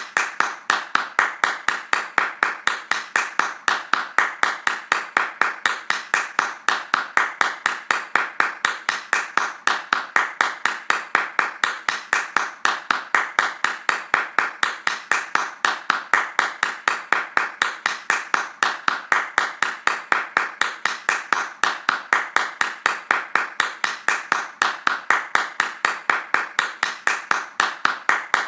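Hands clapping fast in a steady, even rhythm, about four claps a second.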